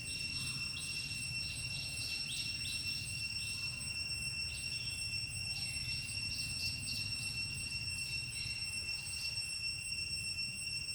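Insects trilling: one steady high-pitched tone, with short chirps scattered over it and a low rumble beneath.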